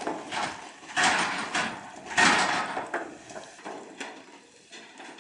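A motorhome's wheels rolling over the plank deck of a floating pontoon bridge: a series of clattering knocks, loudest about one and two seconds in, fading as it moves away.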